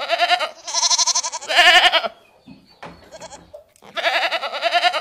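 Goats bleating: a run of loud, quavering bleats, a quieter pause about halfway, then another bleat near the end.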